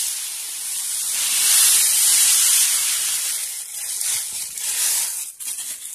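Granulated sugar poured into a dry metal kadai: a steady hiss of grains hitting and sliding on the metal, loudest about two seconds in and thinning out near the end.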